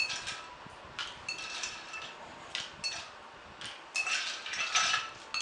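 Ice cubes dropped with metal tongs into a metal cocktail shaker tin, a series of sharp clinks that ring briefly, with a quicker run of clinks about four seconds in.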